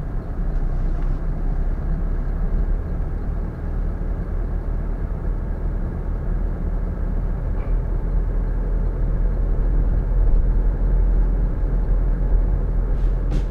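Car driving slowly, heard from inside the cabin: a steady low engine and road rumble from tyres rolling over packed snow.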